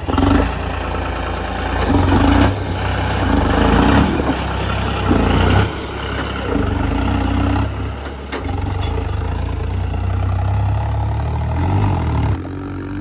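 Tractor diesel engine running and revved in several surges, then settling to a steadier run and dropping off suddenly near the end.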